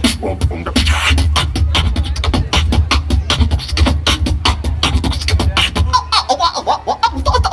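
Live vocal percussion from an a cappella group over a PA: a beatboxed rhythm of sharp, rapid clicks and snare-like hits over a deep, steady bass underneath.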